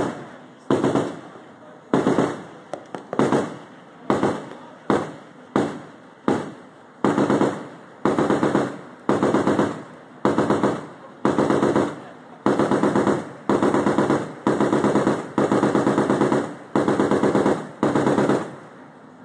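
Automatic gunfire in short bursts, about one burst a second. Each burst is a rapid string of shots that trails off in a fading echo.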